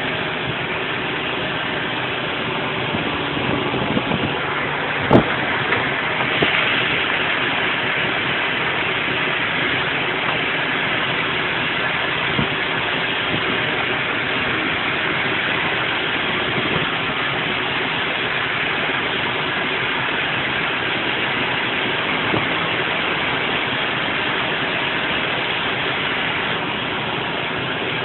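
An engine running steadily, with a single sharp knock about five seconds in.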